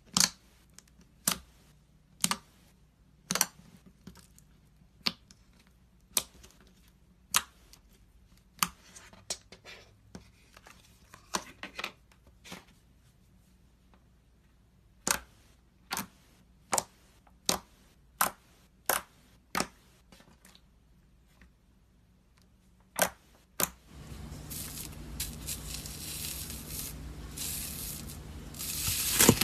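Slime being worked by hand, giving sharp pops about once a second, with a short pause in the middle. Near the end it turns into a steady, louder crackling squish.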